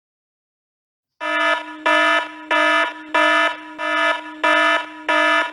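Electronic alarm sounding a buzzy, steady-pitched tone in quick even pulses, under two a second, starting about a second in.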